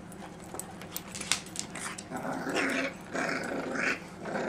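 Dogs growling in rough play: a few short growls start about two seconds in, after some light clicks and taps.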